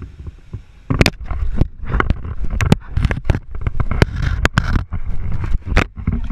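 Rapid sharp knocks and splashing water, starting about a second in, as a crocodilian bites and shakes an action camera, heard close up through the camera's own microphone.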